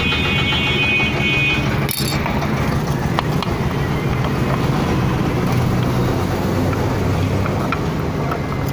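A steady low engine rumble of a running motor vehicle, with a few light clicks of hand tools on metal.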